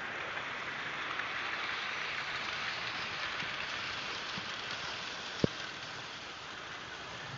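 Hornby model trains running on the track: a steady rushing whir of wheels on rails and electric motors, easing slightly near the end. One sharp click about five and a half seconds in.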